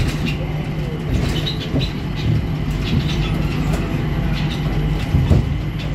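Interior running noise of a Changi Airport Skytrain, a rubber-tyred automated people mover, moving along its elevated guideway: a steady low hum with scattered light clicks.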